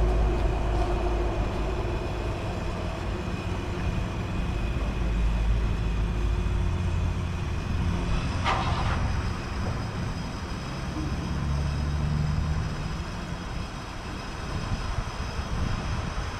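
Steady low machine rumble, with a brief sharp chirp about eight and a half seconds in and a stronger low hum for a second or two shortly after eleven seconds.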